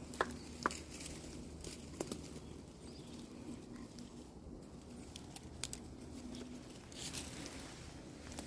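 Olives being picked by hand: leaves and twigs rustling, with a few scattered light clicks as olives drop. A faint steady low hum runs underneath.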